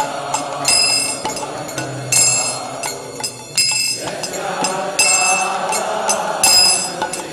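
Kirtan hand cymbals (kartals) ringing in clinking metallic strikes about twice a second, over the rest of the devotional music. The strikes thin out briefly about three seconds in.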